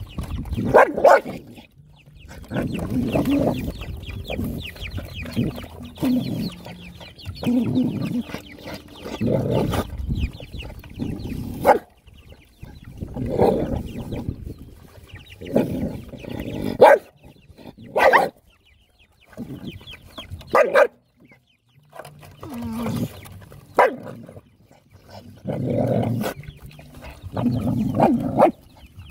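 Several dogs crowded at one food bowl, vocalizing in repeated bursts every second or two, with a few short sharp barks in the second half.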